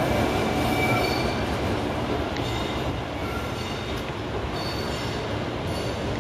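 Two coupled EF510 electric locomotives rolling slowly over the rails with a steady rumble, and faint high wheel squeals coming and going as the wheels take the curving track.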